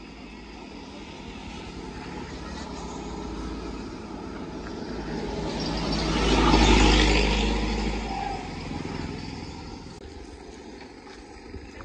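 A vehicle passing by on the road. Its noise builds steadily, is loudest about seven seconds in, then fades away.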